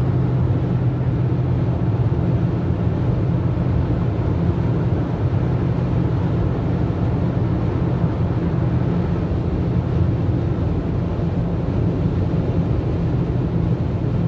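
Steady road noise inside a car cruising at motorway speed: an even, deep rumble that holds unchanged.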